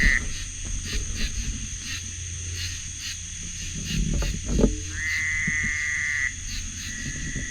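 A frog calling at a pond: long, even calls over a second long, one ending at the very start, a full one about five seconds in and a fainter, thinner one near the end, over a steady high drone of night insects or frogs. A few low thumps come about four seconds in.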